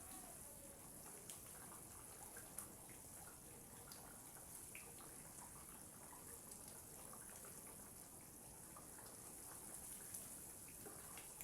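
Tomato sauce simmering in a pot, faint scattered bubbling pops.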